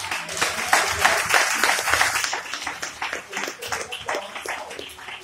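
Audience applauding: it breaks out suddenly, is loudest in the first two seconds, then thins out into scattered claps.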